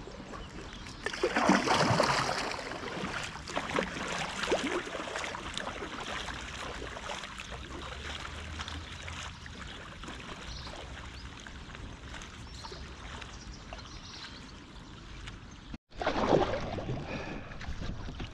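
Water splashing and trickling around a packraft and its paddle, with irregular splashes and a louder surge of splashing about a second in. The sound cuts off abruptly near the end, then loud splashing resumes.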